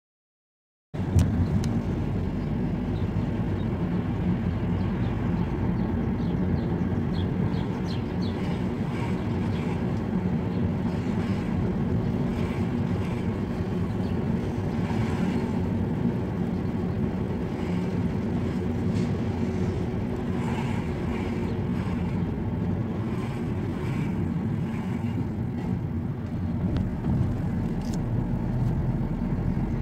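A car driving, its engine and road noise heard steadily from inside the cabin; the sound cuts in suddenly about a second in.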